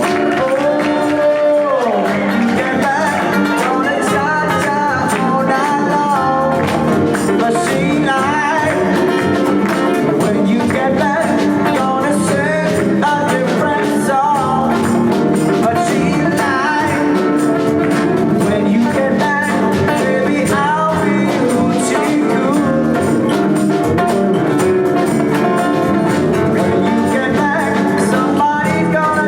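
Live band playing a song, with melodic guitar lines over bass and percussion.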